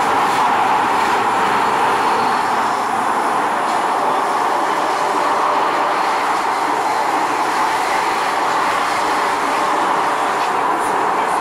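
Steady running noise of a Kawasaki Nippon Sharyo metro train heard from inside the passenger car while it travels between stations: an even, loud rush of wheels on rail that holds level throughout.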